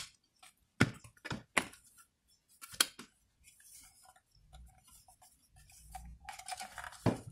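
Hard plastic parts of a handheld fruit and vegetable cutter clicking and knocking as they are handled and fitted together. Several sharp clicks come in the first three seconds, then softer handling noise, with one more click near the end.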